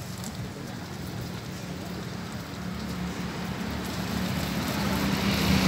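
A steady low engine hum over a background hiss, growing louder in the second half.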